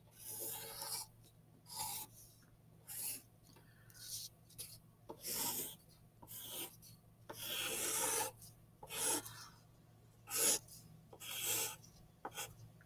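Wooden graphite pencil scratching across paper in about a dozen irregular drawing strokes, some short and some drawn out for nearly a second, sketching branching lines.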